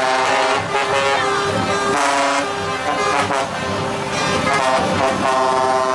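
Truck air horns sounding in long overlapping blasts that change pitch every second or two.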